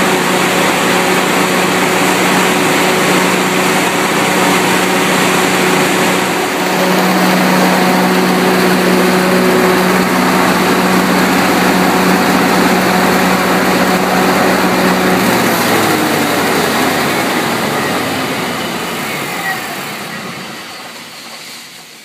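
International Harvester V549 V8 engine of an Onan 70 kW LP-fuelled standby generator, running steadily at its governed speed. About fifteen seconds in it is shut down: the tone drops in pitch and fades as the engine and generator wind down to a stop near the end.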